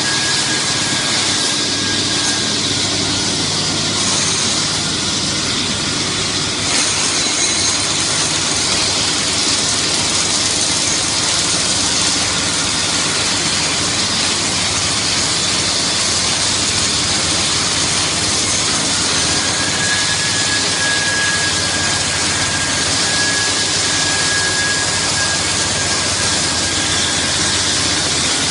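Christ C100 rollover car wash running: a steady, loud rushing noise of the machine's motors, brushes and water, with a faint high whine near the start and again about twenty seconds in.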